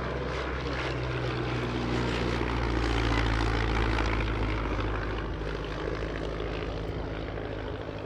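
Propeller engine of a First World War biplane flying past, growing louder to a peak about three seconds in and then fading.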